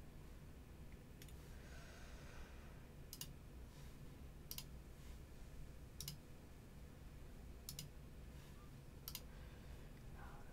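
Computer mouse clicking about six times, roughly one click every second and a half, over a faint low hum.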